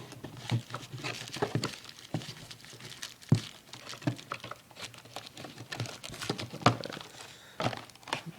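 Firework packages being handled and moved: crinkling packaging and irregular light knocks of cardboard boxes and tubes, with two sharper knocks, one near the middle and one later.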